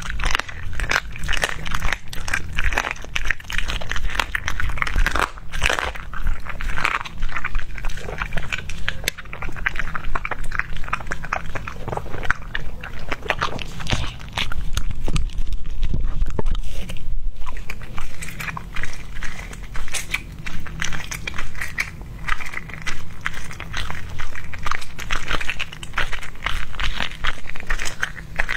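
A dog crunching and chewing raw duck neck, the bones cracking between its teeth in a quick, uneven run of crunches.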